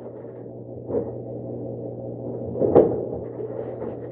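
Kitchen handling noises: a soft knock about a second in and a sharper clack near three seconds, over a steady low hum.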